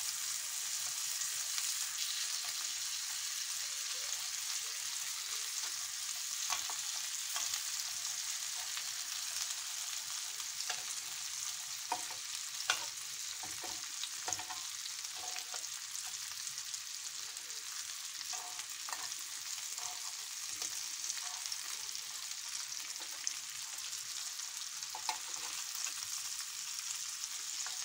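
Cheese-filled beef meatballs sizzling steadily in oil in a ridged grill pan over medium heat. Metal tongs turning them over give scattered clicks and taps against the pan, the sharpest about halfway through.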